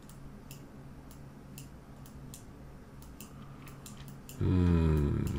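Scattered computer-mouse clicks, a dozen or so at irregular intervals, over a low steady hum. About four and a half seconds in comes the loudest sound: a short wordless voiced 'hmm' from a man, falling slightly in pitch.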